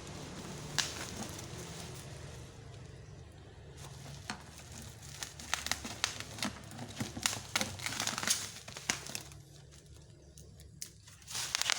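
Packaging being handled during unboxing: crinkling and rustling with scattered sharp clicks and light knocks, busiest in the middle, over a steady low hum.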